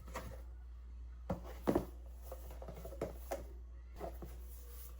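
A few soft knocks and handling sounds of a collapsible plastic-and-silicone wash basin being pushed and handled, over a low steady hum.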